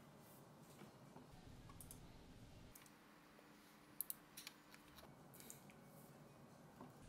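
Computer mouse clicking: a few short, sharp clicks about four seconds in, over near-silent room tone.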